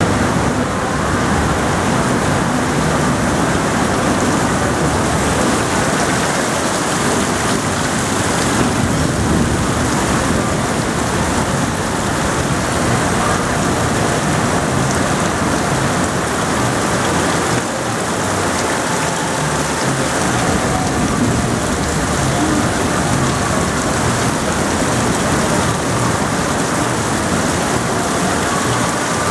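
Heavy, steady rain pouring down in a tropical storm.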